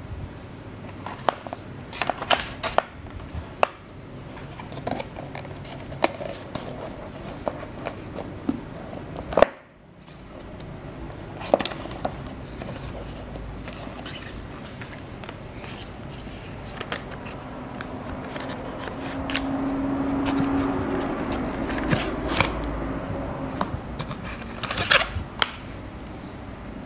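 Hands handling a cardboard box, paper inserts and a cable: scattered clicks, taps and rustles, with a short low hum about two-thirds of the way through.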